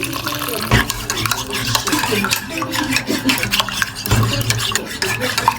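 A spoon or other metal utensil stirring, scraping and clinking rapidly against a dish, a dense run of small clicks and scrapes.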